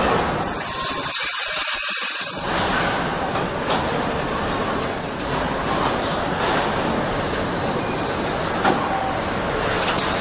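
Car assembly plant machinery running in a steady din, with a loud hiss lasting about two seconds near the start and a few sharp clicks later on.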